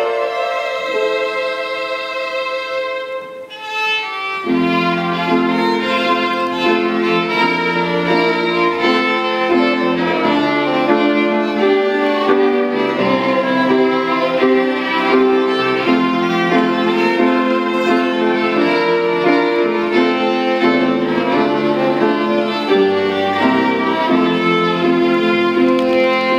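Two violins playing a duet. A single long held note opens, and from about four seconds in a lower second part joins, the two lines moving through changing notes together.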